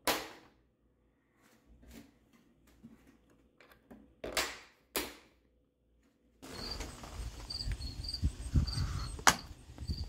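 Plastic screw covers snapping into the casing of a mini split indoor head unit: a sharp snap, a few light clicks, and two louder snaps over the first five seconds. From about six and a half seconds in there is a steady outdoor background with a short high chirp repeating, and one sharp click near the end.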